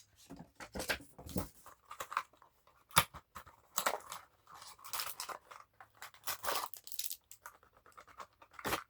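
Keyboard packaging being handled: irregular rustling and crinkling with a few sharp taps, as accessories such as the keycap puller and spare keycaps and switches are taken out.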